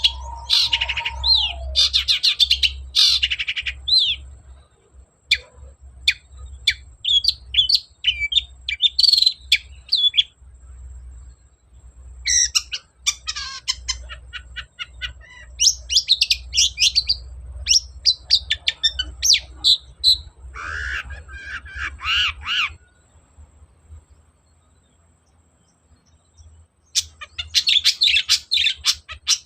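Long-tailed shrike (cendet) singing a fast, varied chattering song full of mimicked phrases, in bursts with short pauses between them, then a pause of about three seconds near the end before another burst. A low rumble runs underneath.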